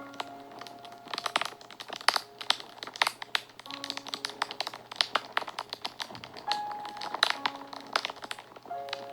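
Fire crackling and popping, a dense run of irregular sharp snaps, over soft background music with short held notes.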